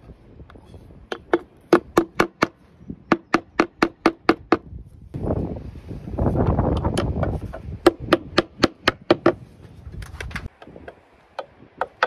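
Slater's hammer striking in quick runs of sharp, ringing taps, about three to four a second, fixing large roofing slates. A rough rustling noise fills the middle, between the two runs of taps.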